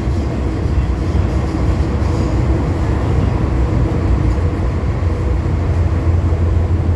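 MTR M-Train electric multiple unit running at steady speed through the Island Line tunnel, heard inside the car: a steady low rumble of wheels on rail with a faint even hum.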